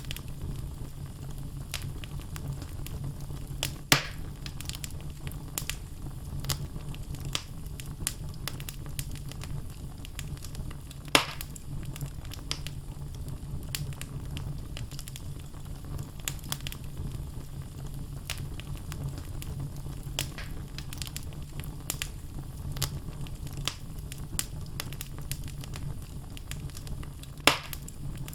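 Wood fire in a fireplace: logs burning with a steady low rumble and frequent crackling, and three louder pops at about 4, 11 and 27 seconds.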